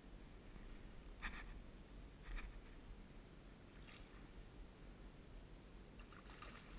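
A hooked steelhead thrashing at the water's surface: four brief splashes spread over a few seconds, faint over a low steady rumble.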